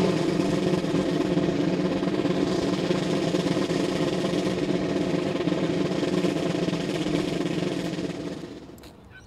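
Military band drum roll, starting abruptly and held steady for about eight seconds before fading away near the end.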